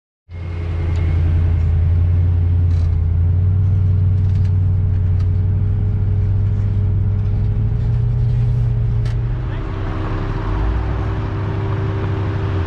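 Toyota FJ40 Land Cruiser's inline-six engine running steadily while crawling a trail, cutting in suddenly; its note rises briefly about eight seconds in, then settles back.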